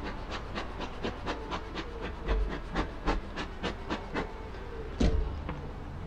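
Bee smoker's bellows pumped rapidly, puffing smoke over the hive with short airy whooshes at about four a second, stopping about four and a half seconds in. A single thump follows about five seconds in.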